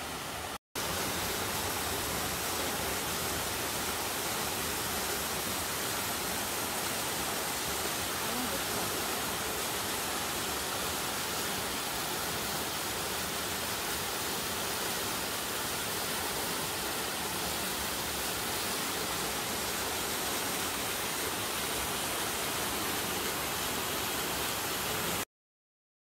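Waterfall cascading over rock into a pool: a steady rush of falling water. It drops out for a moment about half a second in and cuts off abruptly near the end.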